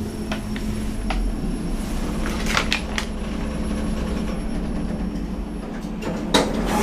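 Lift car in motion: a steady machine hum over a low rumble, with scattered clicks and rattles and a louder clatter near the end.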